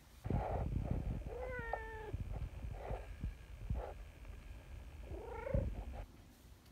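Brown tabby cat purring while it rubs its head against a stroking hand, with two short meows: one about a second and a half in, one near five and a half seconds.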